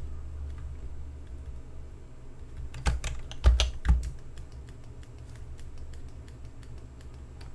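Computer keyboard keys clicking at irregular intervals, with a short run of louder strokes about three to four seconds in, over a steady low hum.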